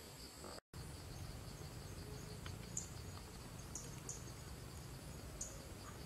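Faint insect chorus, a steady high-pitched trilling, with a few short faint high chirps. The sound drops out completely for an instant about half a second in.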